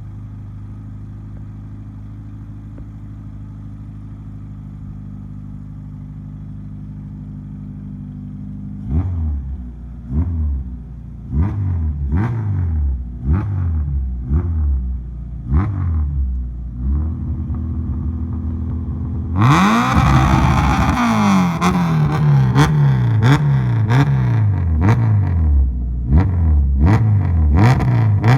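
Proton Satria GTi's Mitsubishi 4G93 1.8-litre four-cylinder engine idling steadily, then revved in short blips about once a second. About two-thirds of the way in it is revved harder with a louder rasp, then blipped again in quicker succession.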